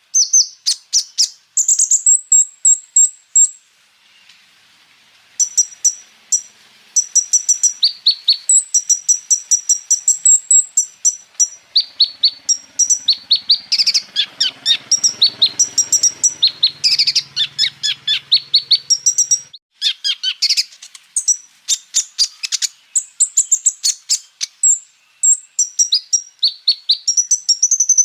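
Kolibri ninja (sunbird) singing: fast, high-pitched chirps and rapid rolling trills, repeated in quick bursts, with a short pause about four seconds in.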